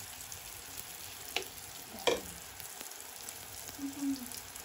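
A ring of sel roti batter deep-frying in hot oil in a black iron pan, a steady sizzle with fine bubbling. Two sharp clicks come about a second and a half and two seconds in.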